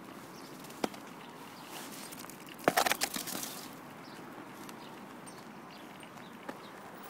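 A dog nosing and biting at a broken white slab and pushing it across wet asphalt: one sharp knock about a second in, then a short burst of scraping and crunching near the middle.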